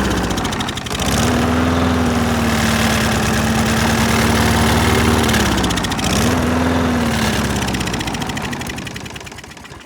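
Small lawn mower engine running with carburetor cleaner being sprayed into its intake: it bogs down sharply about half a second in and again about five and a half seconds in, picking back up each time, then slows and dies near the end. The owner puts the stumbling down to too much spray.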